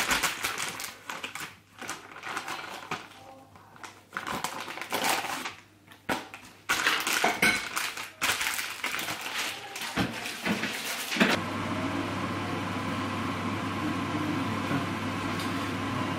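Clinks and knocks of a knife, plates and cutlery being handled on a kitchen counter during food preparation. About eleven seconds in the clatter gives way to a steady hum and hiss.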